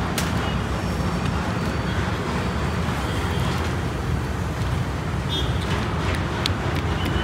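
Steady low rumbling background noise, with a few faint short clicks in the second half.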